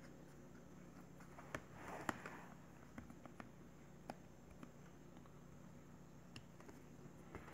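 Faint, scattered small clicks and rubs from a Blu Studio G Plus smartphone being handled as its battery is taken out, over a low steady hum. The loudest click comes about two seconds in.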